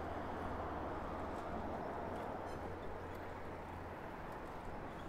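Steady city traffic noise, with a low engine hum that fades out about four seconds in.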